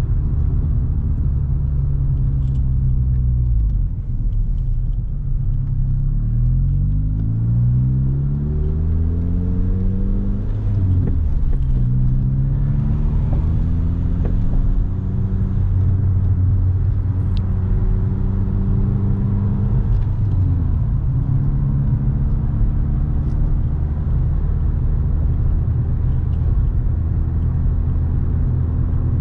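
VW Golf Mk4 GTI's 1.8-litre turbocharged four-cylinder engine and exhaust heard from inside the cabin while driving. The engine note dips about four seconds in, then climbs in pitch as the car accelerates, drops back around eleven seconds in, rises briefly again, and settles into a steady cruise.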